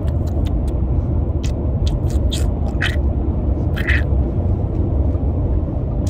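Steady low road and engine rumble inside a moving car's cabin at highway speed, with a few short hissing sounds over it.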